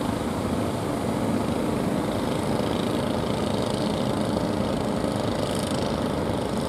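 A fishing boat's engine running steadily, under the continuous wash of breaking surf.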